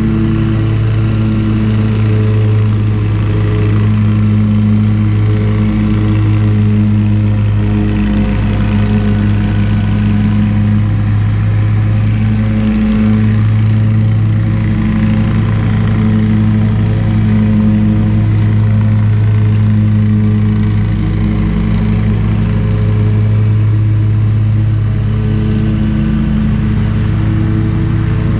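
Lawn mower engine running steadily while mulching leaves, a continuous hum that wavers slightly.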